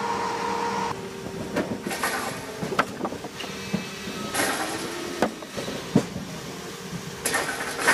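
Tajfun RCA 480 Joy firewood processor running with a steady hum. Split firewood drops off the top of its outfeed conveyor onto the pile as a series of sharp wooden knocks and several short bursts of clattering.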